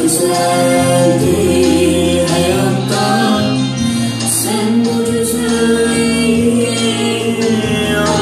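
An Azerbaijani pop song: singing over a steady instrumental backing with long held bass and keyboard notes.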